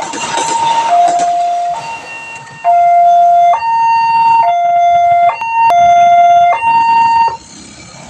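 Railway level-crossing barrier warning siren alternating two tones, low and high, each held just under a second. The clatter of a passing train fades out in the first couple of seconds, and the siren cuts off near the end.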